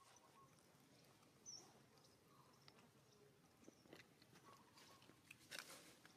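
Near silence: faint outdoor background with scattered soft clicks, a slightly louder one about a second and a half in and a cluster near the end.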